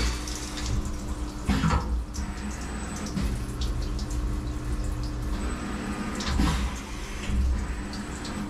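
Flood coolant splashing from a CNC vertical mill's nozzles over the machine's steady hum. A few clunks come from the tool changer as it swaps the spot drill for a drill.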